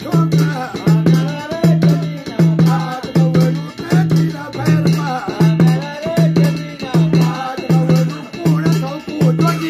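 A man singing a wavering melody to his own accompaniment on a small rope-laced hand drum. The drum gives a deep tone in a steady rhythm of about two strokes a second.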